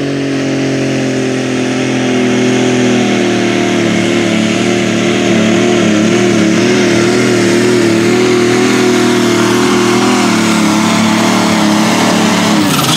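John Deere super stock pulling tractor's turbocharged diesel engine running flat out under load as it pulls the sled. The pitch climbs at the start, holds high, wavers up and down through the middle, and drops away near the end.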